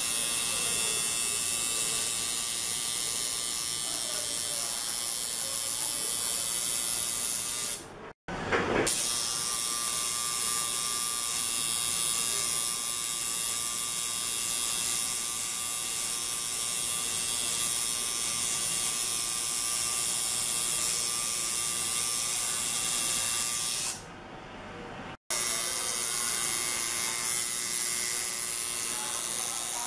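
Coil tattoo machine buzzing steadily as its needle lines skin. The buzz drops out briefly twice, about a quarter of the way in and again near the end.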